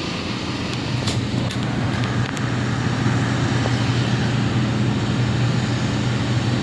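IFE passenger lift approaching in its shaft: a low steady hum that grows louder from about two seconds in, with a few faint clicks early on.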